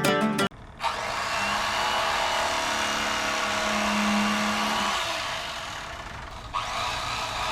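Electric Fisherman electric fillet knife running steadily with its blades working through a perch, a whirring motor noise that starts about a second in. It eases off briefly about six seconds in, then comes back up.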